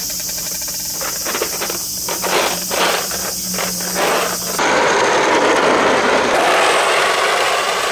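Plastic balls rattling and clicking inside a clear plastic toy RV as it is handled, over a steady high hiss of insects. About halfway through, the sound cuts to a louder, steady rough noise.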